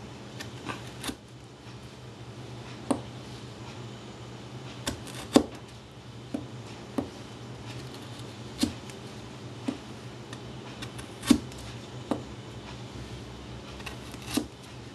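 Kitchen knife making repeated straight-down cuts into a block of raw carrot, each stroke ending in a short, sharp click, unevenly spaced at about one a second.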